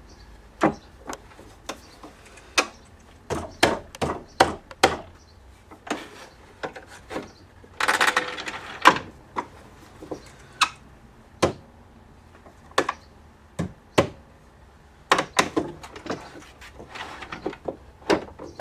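Wooden jaw of a quick-release leg vise being slid in and out and clamped on boards: a long irregular series of sharp wooden knocks and clacks, with a short rasping slide about eight seconds in.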